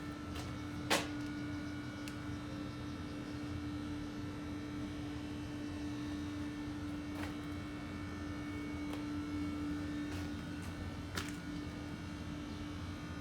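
Boiler room machinery running with a steady hum: one constant tone over a low rumble. A sharp click about a second in and a lighter one near the end.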